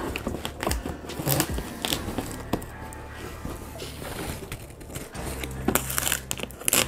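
Packing tape being picked at and peeled off a cardboard box: scratchy tearing and crackling in short irregular rips, the loudest rips coming about six seconds in.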